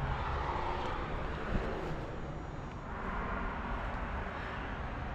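Steady outdoor background noise, a wash like distant traffic, rising and falling gently.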